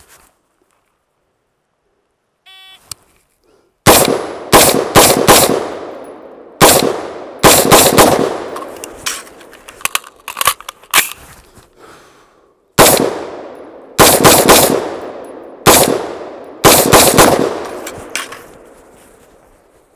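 Arsenal Democracy AD-15 AR pistol firing loud semi-automatic shots in quick strings of two to four, each with a ringing echo, separated by short pauses for a timed drill that includes a magazine reload. A short beep comes about two and a half seconds in, and the first shot follows near four seconds.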